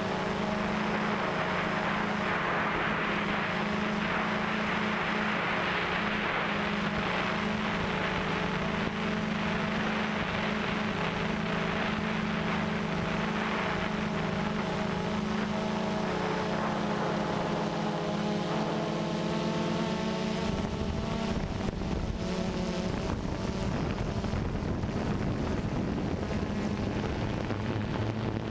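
Small multirotor drone's propellers and motors humming steadily, a whine of several pitches that wavers and shifts about two-thirds of the way through as the drone manoeuvres, with some wind noise on the microphone.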